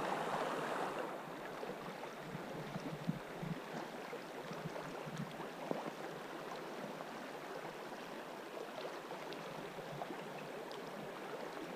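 River current rushing steadily over a choppy riffle, with a couple of faint clicks.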